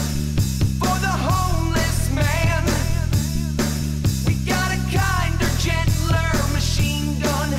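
Rock song with a male singing voice over bass, drums and guitar, playing steadily.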